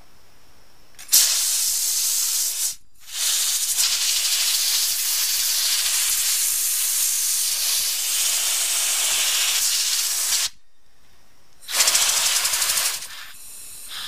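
Compressed air from an air-compressor blow gun hissing as it blows sanding grit off a bicycle disc brake rotor and caliper. It comes in three blasts: about a second and a half, then after a brief break a long one of about seven seconds, then after a pause one more short blast near the end.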